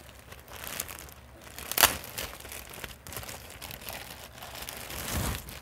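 Clear plastic bag crinkling and rustling as it is handled and opened to take out a folded T-shirt, with a sharp crackle about two seconds in and a louder rustle near the end.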